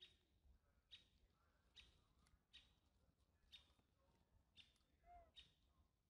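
Near silence: a nursing baby macaque's faint suckling clicks about once a second, and a brief faint squeak about five seconds in.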